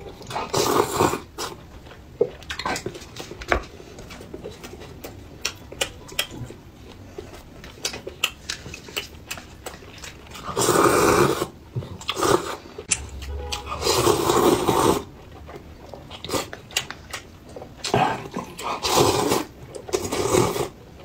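Noodle slurping and chewing close to the microphone: a man sucking hot-and-sour glass noodles from a paper cup, with several long, loud slurps around the middle and again near the end, and small wet smacking clicks between them.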